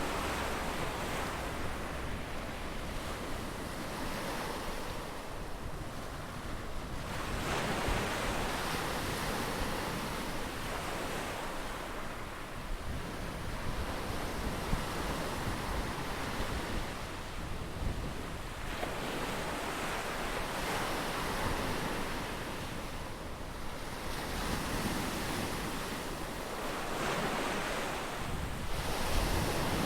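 Ocean surf: waves breaking and washing in as a continuous rushing, swelling and easing every five seconds or so.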